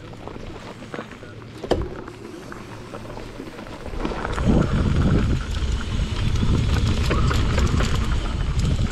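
Mountain bike rolling down a dirt trail: wind buffeting the microphone and tyres and frame rattling over the ground, growing much louder about four seconds in as the bike picks up speed. A single sharp knock a little before two seconds in.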